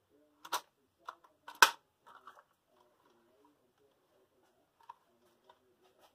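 PCP air rifle being cocked and loaded by hand: a quick run of sharp metallic clicks, the loudest about a second and a half in, then a couple of faint clicks near the end.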